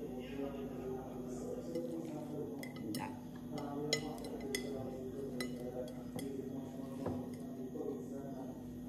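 Light, scattered clicks and clinks of a plate and fingernails as a burger's top bun is pressed into place, over a steady low hum.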